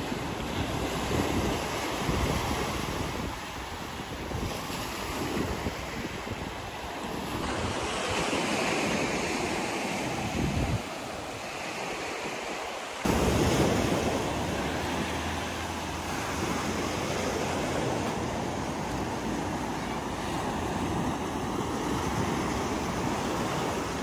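Sea surf washing onto a pebbly beach, with wind rumbling on the microphone. The sound changes abruptly twice, about seven and thirteen seconds in.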